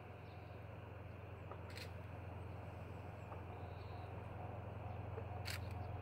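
Distant JR Freight DF200 diesel-electric locomotive hauling a freight train, heard as a low steady drone that grows slowly louder as it approaches. Two short sharp clicks are heard, one early and one near the end.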